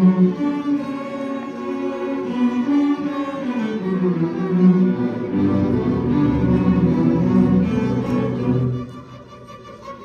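Instrumental music led by bowed strings, cello and violin, dropping suddenly to a much quieter passage near the end.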